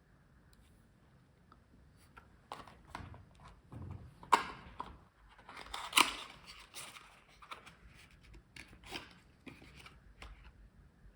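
A small boxed die-cast toy car and its cardboard and plastic packaging being handled: irregular rustling and crinkling with scattered sharp clicks, the two loudest about four and six seconds in.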